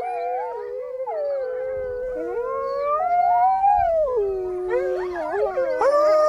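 A wolf pack howling in chorus: several long howls overlap, each sliding slowly up and down in pitch.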